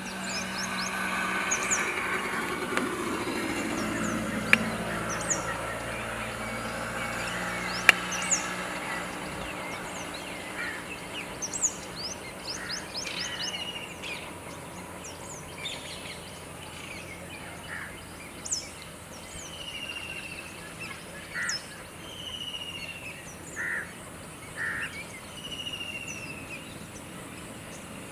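A mixed chorus of birds calling at a water-bird colony: sharp, high, quickly falling chirps again and again, with short lower notes and repeated slurred descending calls. Over the first few seconds a low drone falls in pitch and fades out by about nine seconds in, with two sharp clicks along the way.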